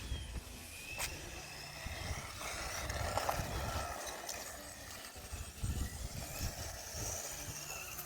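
Small electric RC truck driving through wet grass, its motor whining up and down with the throttle, with a click about a second in and a hissing swell in the middle as the tyres slide on the damp ramp.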